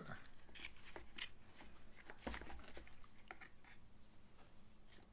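Faint rustling and light clicks of small items being handled and unwrapped.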